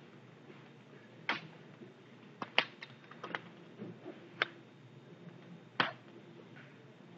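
Toy car track pieces being handled and fitted together: about eight sharp, scattered clicks and clacks, the loudest about two and a half seconds in.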